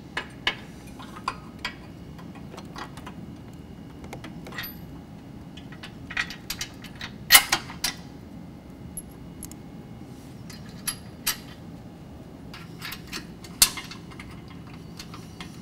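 Steel bolt, washers, nut and bracket clinking and clicking against a Jeep JK's frame as they are fitted by hand: scattered light clicks, the loudest about halfway through and again near the end, over a steady low hum.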